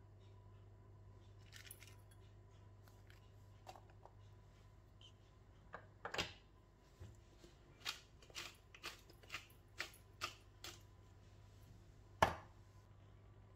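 Hand-twisted glass pepper mill grinding black peppercorns, a run of clicks at about two a second. A single sharp knock near the end, louder than the rest.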